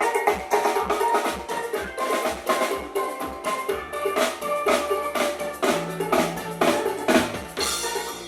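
A band playing at a sound check, with busy drum-kit strikes over pitched melodic notes and a bass line.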